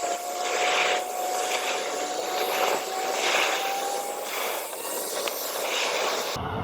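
Airliner engines running with a steady whine that rises slowly in pitch, over a broad rushing noise that swells and ebbs. The whine fades after about four seconds, and the sound cuts off abruptly near the end.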